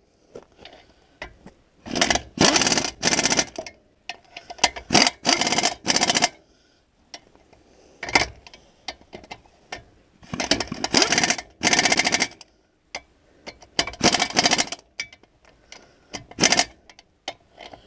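Pneumatic impact wrench (air gun) on a long socket extension hammering a bolt inside a disc mower's drum hub, in repeated bursts of about one to two seconds with short pauses between.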